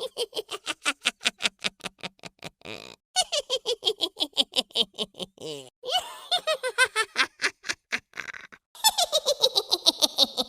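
Witch cackle sound effect: a high, rapid cackling laugh in about four runs, each falling in pitch as it goes.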